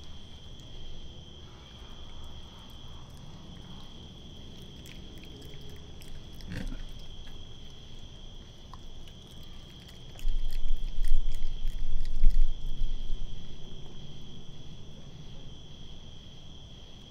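Raccoon chewing and snuffling close to the microphone, with soft clicks, over a steady high chirring of crickets. About ten seconds in, a few seconds of louder low rumbling bumps come from very close to the microphone.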